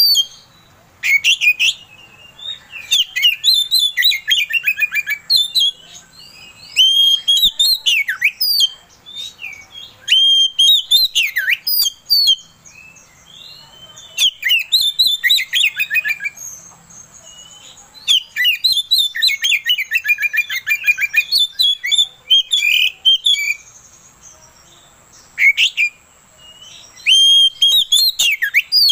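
Oriental magpie-robin singing vigorously: loud, varied phrases of clear whistles, sweeping notes and rapid trills, each a second or two long, with short pauses between.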